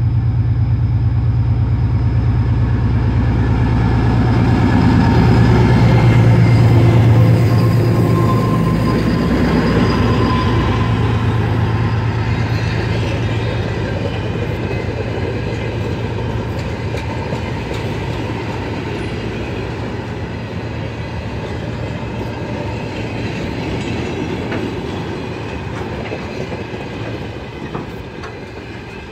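3TE10M diesel locomotive's 10D100 two-stroke engines running under load as it passes close by, loudest about seven seconds in. The train's coach, crane and wagons then roll past with wheels clacking over the rail joints, and the sound fades steadily as the train draws away.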